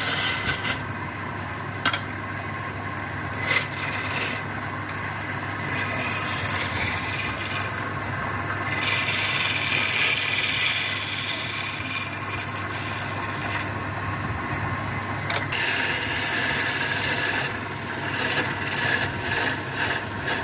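Wood lathe motor running with a steady hum while a turning tool cuts and scrapes the spinning wood, in several stretches of louder hissing, with scattered clicks.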